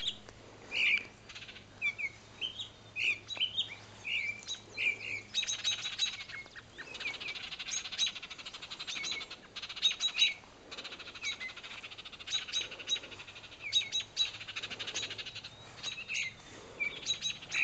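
Adult songbirds, which the uploader takes for Baltimore orioles, giving alarm calls at a person near their fallen fledgling: short sharp chirps at first, then from about five seconds in repeated harsh, rattling chatters mixed with single chirps.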